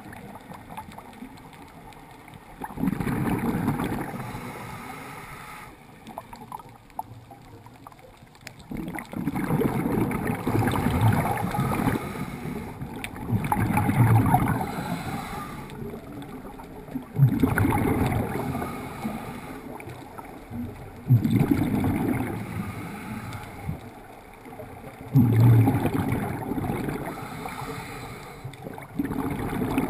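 Scuba diver's regulator breathing, heard through an underwater camera housing: a burst of rumbling, gurgling exhaust bubbles about every four seconds, with quieter stretches between.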